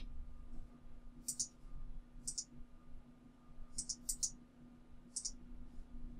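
Short, sharp clicks from a computer mouse and keyboard during a web search. They come about once a second, with a quick run of three near the middle, over a faint steady hum.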